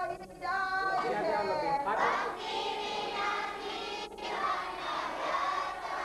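A group of children and adults singing a devotional prayer together in unison. Near the start the sound drops out briefly, a glitch of the worn videotape.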